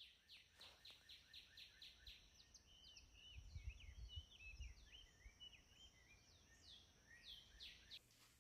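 Faint birdsong: a quick run of repeated down-slurred notes, then a jumble of chirps and a few more slurred notes near the end. A low rumble comes and goes around the middle.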